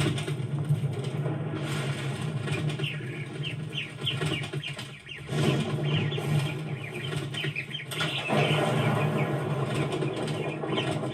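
A bird's wings flapping, with many short, high chirps.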